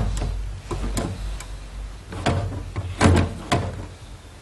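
Homemade copper cat flap pushed open and let go, swinging and knocking against its metal frame in a series of irregular knocks as it settles shut, the loudest about three seconds in.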